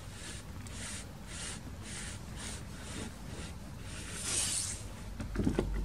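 Paper kamishibai picture card being slid out of its wooden frame, a series of short rubbing swishes about two a second, then a longer, louder swish about four seconds in. A few soft knocks come near the end.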